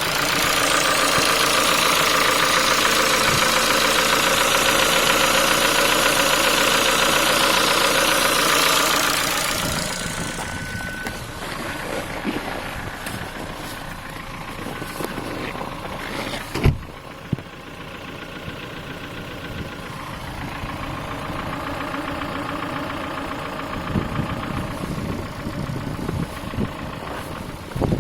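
Ford Focus 3 1.6 125 hp four-cylinder petrol engine running with a knock, which the owner puts down to a worn piston pin. It is louder for about the first nine seconds, then settles quieter, with one sharp knock around seventeen seconds in.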